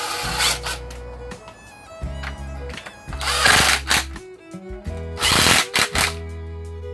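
Cordless drill running in short bursts, spinning in bolts on an engine being reinstalled.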